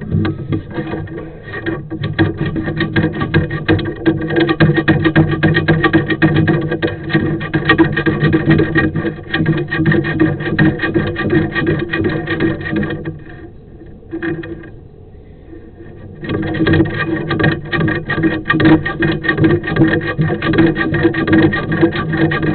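Sewer inspection camera's push cable rattling and scraping inside a cast iron drain line, with a steady hum under it, as it is forced against an obstruction that will not let it through. The rattling drops away for a few seconds past the middle, then resumes.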